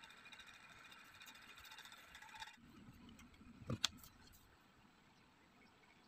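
Quiet handling of a cardboard piece wrapped in velvet fabric. A faint steady hiss drops away about two and a half seconds in, then a couple of short knocks come just before four seconds in as the cardboard is handled.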